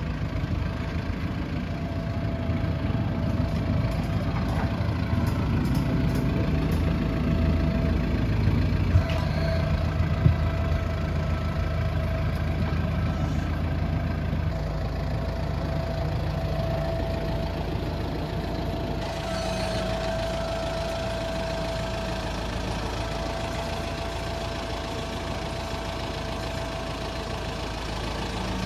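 Kubota tractor diesel engines running steadily, with a thin steady whine above the rumble and two short knocks about nine and ten seconds in.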